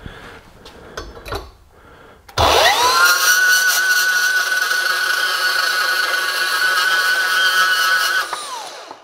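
A few light clunks, then the Hercules 20V cordless brushless deep-cut band saw starts about two seconds in, its motor whine rising quickly to a steady pitch as the blade cuts through 1.5-inch steel pipe with a 1/8-inch wall. Near the end the trigger is released and the motor winds down in a falling whine.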